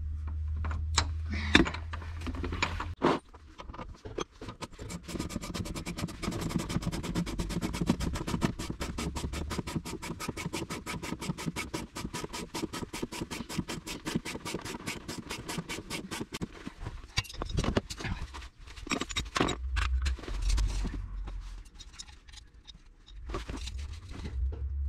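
Hand tools working metal on a van's front wheel: knocks and scraping, then a fast, even run of sharp clicks for about twelve seconds, then more knocks and scrapes.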